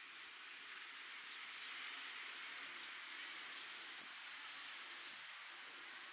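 Faint, steady outdoor ambience with a few brief, high bird chirps over it.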